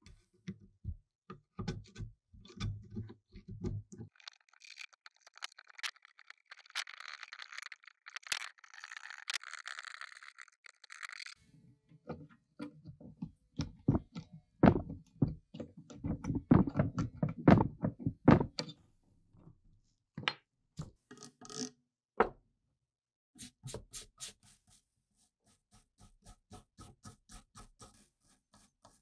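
Hand tools working rust and caked dirt off corroded machine-gun parts: a steel scraper and pick scratching and knocking crust from a coiled spring and a small part, with a run of heavy thuds and knocks about midway. Near the end a small wire brush scrubs the spring coils in quick, ticking strokes.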